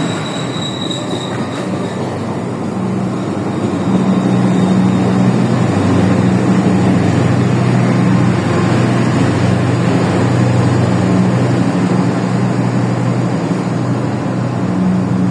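Diesel-hauled passenger train pulling into a station: the locomotive's engine gives a steady low drone over wheel and rail noise, with a faint high wheel squeal in the first second or so.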